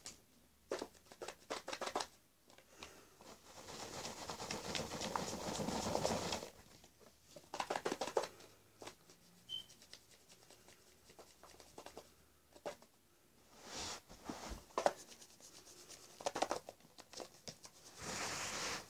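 Pink and blue sherbet powder with small hard candy bits being shaken together in a small plastic tub to mix them: soft rattling and hissing in uneven bouts with short pauses, the longest about three to six seconds in.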